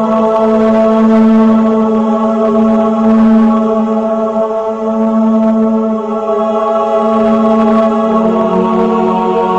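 Background music: slow chords held steady on a sustained keyboard pad, the bass note dropping to a lower pitch about eight seconds in.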